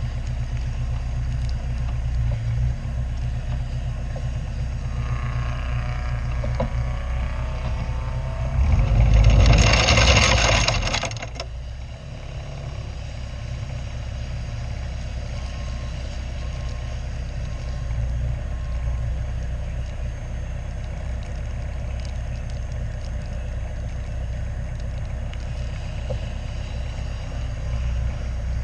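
Caterham race car's engine running steadily at low revs, heard on board, with a loud rushing burst about a third of the way in that lasts about two seconds and cuts off suddenly.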